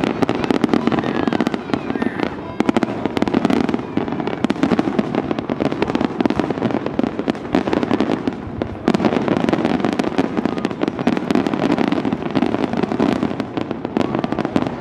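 Large fireworks display: a dense, continuous barrage of shell bursts and crackling bangs, with a brief dip just before nine seconds in.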